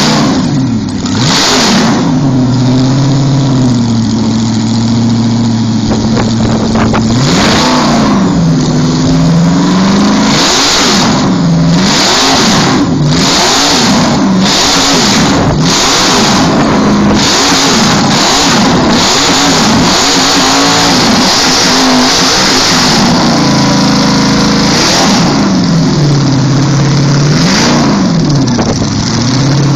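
V8 engine of a cement mixer being revved over and over: held at high revs for a few seconds, then blipped up and down about once a second, then held high again and revved a few more times near the end.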